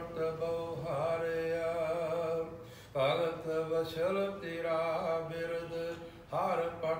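A man's voice chanting Gurbani, Sikh scripture, in a slow melodic chant over a steady held drone, pausing briefly between phrases.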